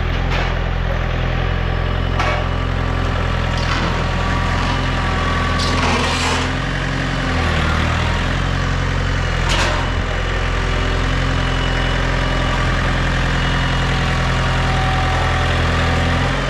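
Engine idling steadily, with about five sharp knocks or clanks in the first ten seconds.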